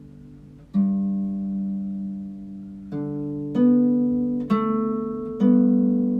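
Background harp music: slow plucked notes and chords, about five in all, each ringing out and fading.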